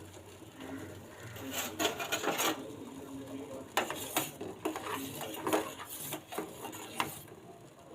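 Kitchen utensils clinking and scraping. There are irregular sharp clinks, a cluster about two seconds in, then single ones every second or so.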